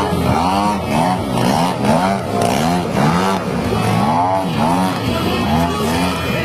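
Small gasoline engine of an RC model airplane, its pitch swinging up and down over and over, about twice a second.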